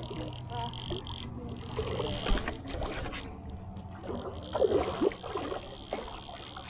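Water splashing as a hooked stingray thrashes at the surface, loudest about two seconds in and again around four and a half to five seconds in, over a steady high-pitched hum.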